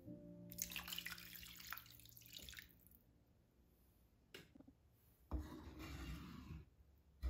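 Liquid poured into a frying pan of hot tomato sauce, a splashing pour lasting about two seconds. Then a wooden spoon stirs the thinned sauce, with a few sharp knocks against the pan.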